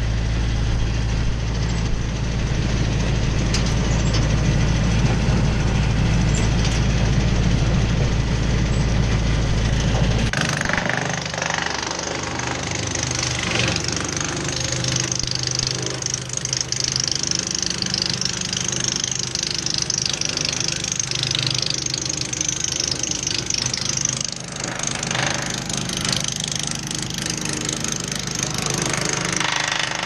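Jinma 8-inch PTO wood chipper running off a tractor, with the engine's steady deep hum. About ten seconds in the deep hum drops out abruptly, and a harsher, hissing machine noise carries on.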